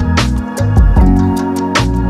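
Background music: a calm instrumental track with sustained chords and a stepping bass line over a steady beat of light ticks, with a heavier hit twice.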